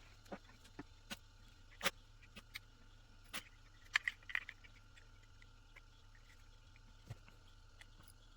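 Scattered light clicks and taps, a dozen or so, uneven in spacing and loudest about two seconds in, from the small plastic and metal parts of a hair clipper being handled during its teardown.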